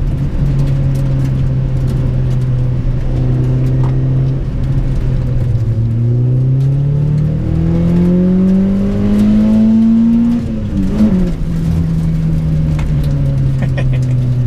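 Honda Prelude's H22A 2.2-litre VTEC four-cylinder engine driving along. It holds steady revs, then climbs in pitch for about five seconds under acceleration, drops sharply about two-thirds of the way through, and settles back to steady revs.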